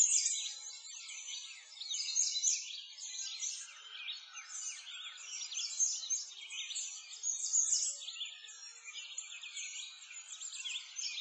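A dense chorus of small songbirds, many overlapping high chirps and trills that swell and fade every second or two.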